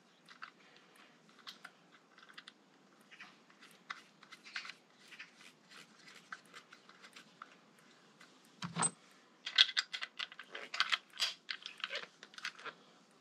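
Light clicks and taps of small parts and hand tools being handled, with a louder knock about nine seconds in and a quicker run of clicks after it.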